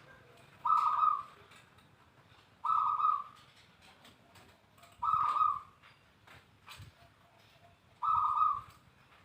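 Zebra dove (perkutut) cooing: four short coos, each about half a second long, spaced two to three seconds apart.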